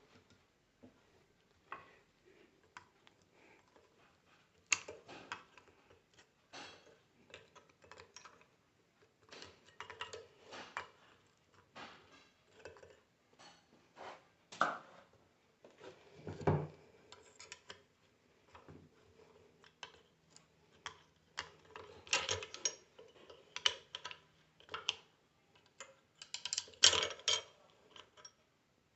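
Light metal clinks and taps of tools and pieces of a broken-apart alternator bearing being handled and worked off the rotor, irregular and scattered, with one heavier knock around the middle and busier clatter near the end.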